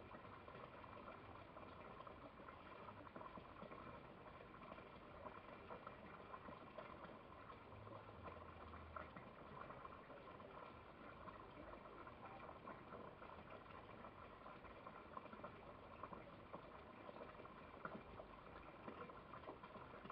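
Near silence: a faint, even hiss with light crackling.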